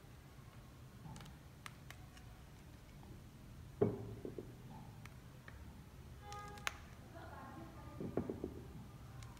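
Faint clicks and knocks of fresh green chillies being broken by hand and dropped into a stainless-steel blender jar, with a louder knock about four seconds in and a few more near the end.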